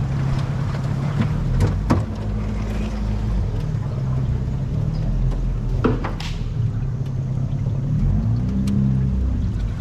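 Small boat's outboard motor running steadily at low throttle, its pitch wavering a little near the end, with a few sharp knocks on the boat.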